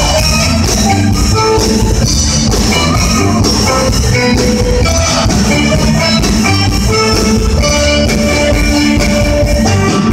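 Live band playing an instrumental passage without vocals: drum kit, bass, electric guitar, keyboard and saxophone, with held melody notes over a steady beat.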